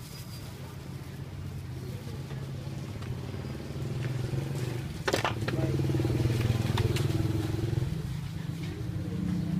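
A small engine running steadily with a low pulsing hum, louder from about five seconds in, with a sharp click just as it swells.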